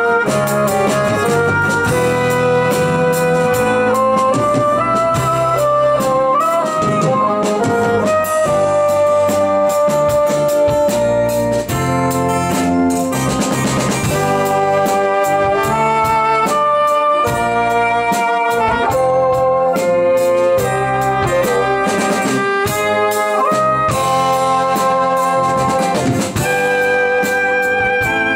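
Progressive rock band playing an instrumental passage live: a melody of held notes, led by bassoon, over keyboards, electric bass guitar and drums.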